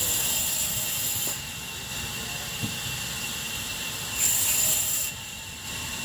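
A band saw running and cutting through a raw log with a steady high hiss. It grows louder twice, at the start and again about four seconds in, as the blade works through the wood.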